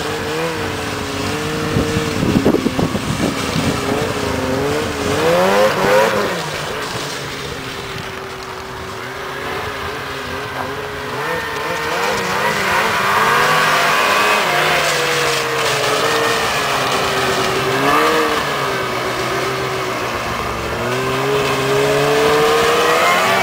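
Snowmobile engines running and revving as the sleds ride around, the engine pitch rising and falling with the throttle; the engine note climbs just before the end as a sled comes close.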